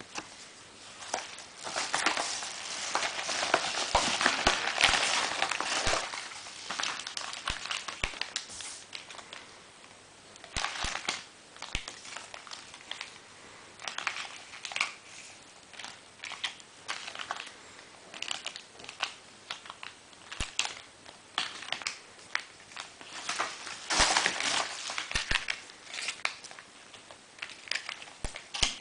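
Packaging being handled and opened, crinkling and crackling in a dense stretch for the first few seconds, then in scattered rustles and clicks, with another crinkling burst near the end.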